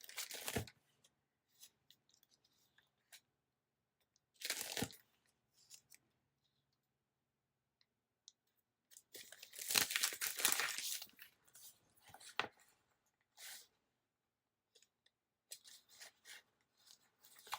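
Paper and sticker sheets being handled: short rustles every few seconds, and a longer tearing, peeling sound from about nine to eleven seconds in.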